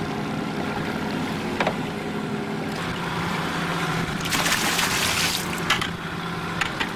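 Boat engine running steadily at trolling speed, with water sloshing against the hull. A loud burst of hiss rises about four seconds in and lasts about a second, and a few light knocks sound around the boat.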